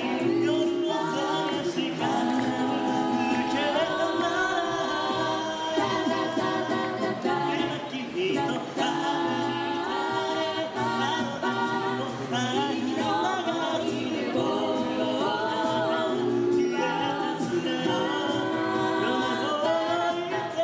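A mixed six-voice a cappella group singing a pop arrangement through microphones. Held chords sit under a moving lead melody, and a steady beat of short high ticks runs through it all.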